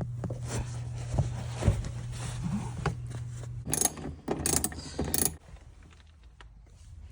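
Handling noises from fitting the car's rear seat and interior plastic trim: scattered clicks and knocks over a low steady hum. A little past halfway the hum stops and three short scraping bursts follow about two thirds of a second apart.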